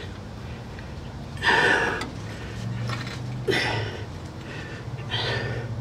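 A man breathing hard from exertion, three short heavy breaths about two seconds apart, over a low steady hum.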